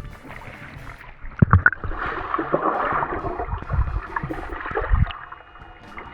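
Pool water splashing and churning as a person dives in, with a couple of sharp knocks about a second and a half in.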